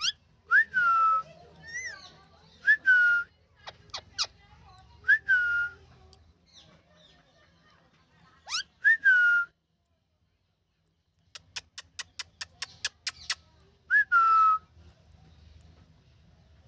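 Indian ringneck parrot calling: about five loud whistled calls, each a quick upward flick dropping into a short falling tone. In the second half comes a fast run of about ten sharp chirps, roughly five a second.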